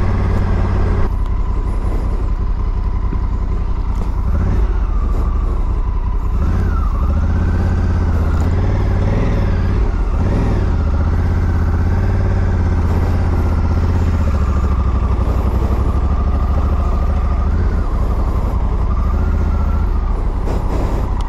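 Motorcycle engine running while riding slowly, its pitch rising and falling as the revs change.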